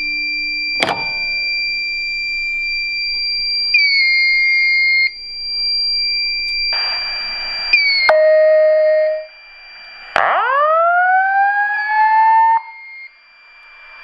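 Fire alarm system sounding after a pull station is pulled: a steady high electronic tone with a sharp click about a second in, then a harsher, noisier alarm signal joining around seven seconds. About ten seconds in, the voice evacuation speakers start a rising whoop tone that sweeps up and holds before cutting off.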